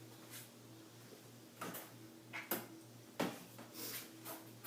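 Several light clicks and knocks at irregular intervals, the sound of objects being handled, over a faint steady hum.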